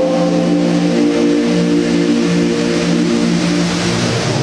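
The Rain Vortex indoor waterfall's steady rush of water plunging into its basin. Held low musical notes sound over it, changing every second or two.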